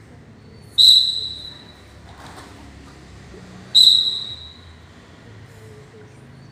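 Two short, shrill whistle blasts about three seconds apart, each ringing out in a large hall, paced to cue a class of children through the moves of a kata.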